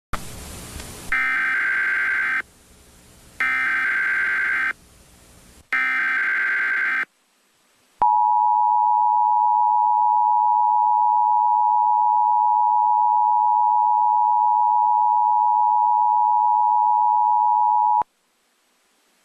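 Emergency Alert System tones: three bursts of digital SAME header data, each about a second long, then the two-tone attention signal, a steady pair of tones near 1 kHz held for about ten seconds before cutting off abruptly.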